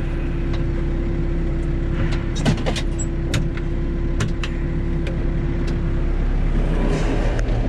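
Four-wheel-drive backhoe's diesel engine running with a steady whine that stops about six seconds in. Several sharp clanks ring out over it as the bucket works in the sandstone.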